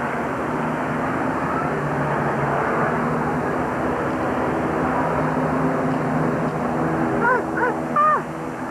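Steady outdoor din of many overlapping voices, with two or three short calls near the end that swoop up and down in pitch.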